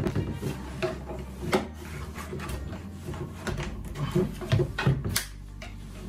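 Screws being undone by hand with a screwdriver from the plastic housing of a cordless vacuum cleaner's turbo brush head: irregular clicks, scrapes and small knocks of screwdriver, screws and plastic.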